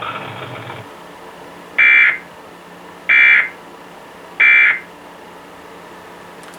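Emergency Alert System end-of-message signal: three short identical bursts of warbling digital data tones, about 1.3 s apart, marking the end of the alert broadcast.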